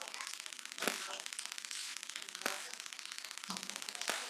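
Close-miked eating sounds: fingers squishing and mixing rice with chana dal gosht on a plate, with a few sharp clicks and smacks over a steady hiss.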